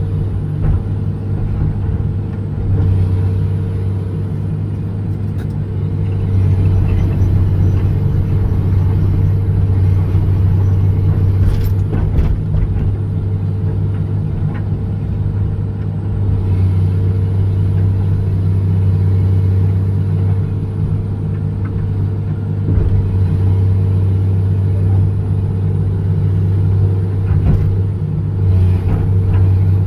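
John Deere 200LC excavator's diesel engine running steadily under load while the machine digs, with a faint high whine that rises and falls several times. A few short knocks come near the middle and near the end.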